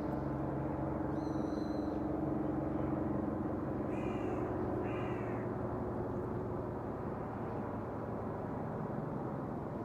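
A cat meows twice, short calls a second apart, over a steady low hum.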